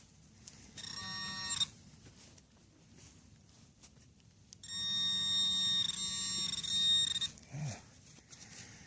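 Metal detector sounding two steady electronic tones on a buried target, a short one about a second in and a longer one of nearly three seconds midway.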